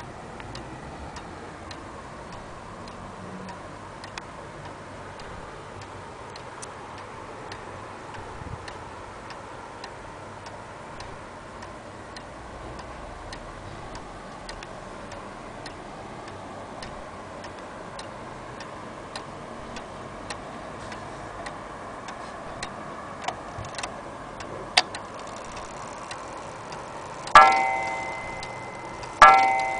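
Antique Vienna wall clock ticking steadily, then striking twice on its coil gong near the end, each stroke a loud ringing tone that slowly dies away.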